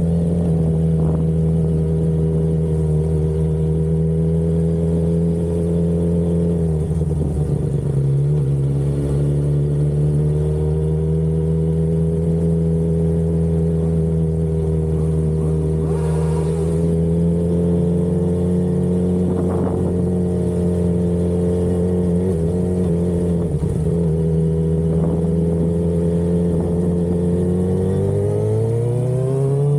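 Sport bike engine running at a steady cruise, its pitch dipping briefly about a quarter of the way in and then climbing as it revs up near the end.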